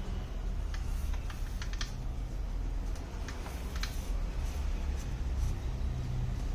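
Light, irregular clicks and taps of small tools and parts being handled in a tablet repair, over a low steady hum.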